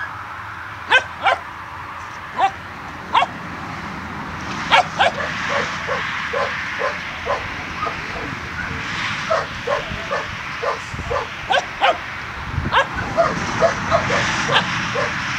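Kelpie puppy yapping in play: a few separate sharp yaps, then from about five seconds in a quick run of short, high yips, about two or three a second.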